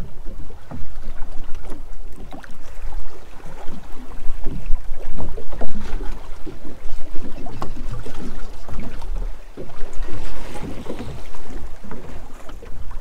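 Small waves slapping irregularly against the hull of a drifting boat, with wind buffeting the microphone in a steady low rumble.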